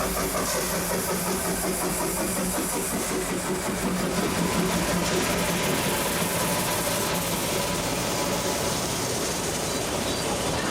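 Puffing Billy narrow-gauge train headed by Na class steam locomotive 8A and diesel locomotive DH31, running steadily with a constant engine drone under a wash of hiss. The drone fades about eight seconds in.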